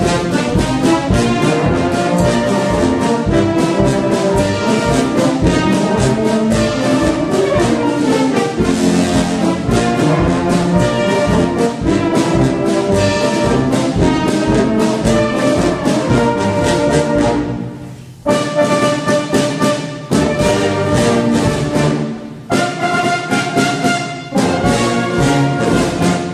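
Background instrumental music, with two short breaks in the last third.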